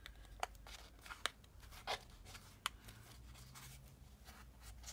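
Faint rustling of paper pages, with a few soft ticks about a second apart, as a needle is pushed through the paper while a journal signature is sewn.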